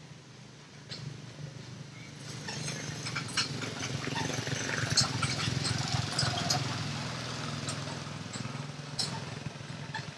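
Long-tailed macaques calling in short pitched squeaks, with scattered clicks and rustling, over a steady low hum. The calls and rustling grow louder a couple of seconds in and ease off near the end.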